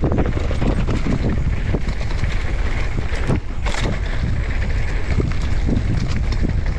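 Wind buffeting the microphone of a camera riding along on a mountain bike, a steady low rumble with frequent short knocks and rattles from the bike on rough trail.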